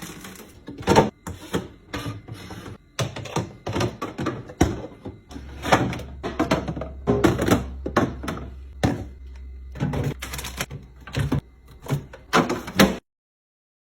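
Plastic storage boxes and food items being set down and shifted around inside a refrigerator: a run of irregular knocks and clatters, with a steady low hum joining about five seconds in. It all stops abruptly near the end.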